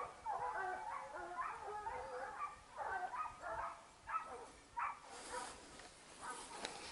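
Hunting dogs baying on the trail of a wild boar, short yelping cries coming several a second and overlapping. A short rustle about five seconds in.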